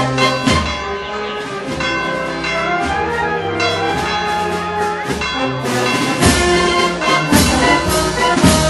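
Marching band of brass and woodwinds (sousaphone, trumpets, saxophones, clarinets) playing a tune in the street as it walks. Loud percussion strikes come in from about six seconds in.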